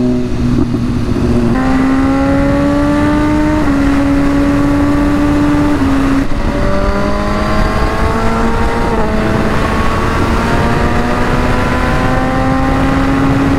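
Motorcycle engine pulling along the road over the rush of riding wind. Its pitch climbs slowly, then drops in a step at each gear change, a few times over the stretch.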